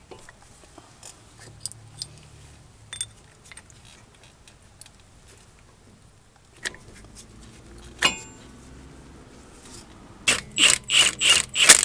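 Light metal clicks and a clink as caliper slide pin bolts are handled and started by hand. Near the end a cordless power ratchet runs in about six short, loud bursts.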